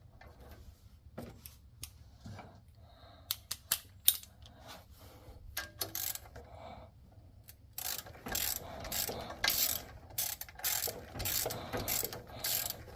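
Hand ratchet wrench clicking as the water pump bolts are tightened in turn: scattered clicks and taps at first, then steady runs of rapid ratcheting from about eight seconds in.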